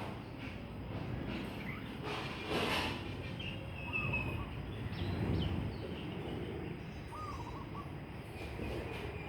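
Birds calling, a few short chirps and small whistled calls, over a steady low rumble of background noise, with a brief rush of noise about two and a half seconds in.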